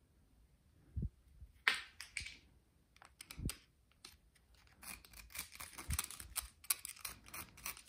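A small screwdriver scraping and picking inside a reverser's seawater cooling port, a dense run of quick scratchy clicks from about five seconds in, after a couple of knocks as the tool is picked up. It is clearing out shell and weed deposits that had clogged the seawater cooling passage.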